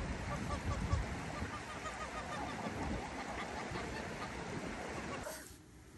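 A flock of mallards and other waterfowl on a lake calling, many short quacks and honks overlapping, over a low wind rumble on the microphone. It all drops away about five seconds in.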